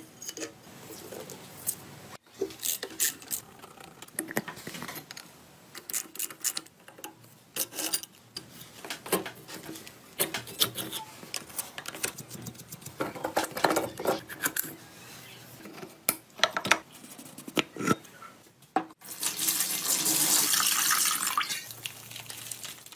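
Scattered clicks and metallic clanks of hand tools and parts on an old air-cooled motorcycle engine being dismantled, then, near the end, a few seconds of water rushing and splashing into a plastic tub, the loudest sound in the stretch.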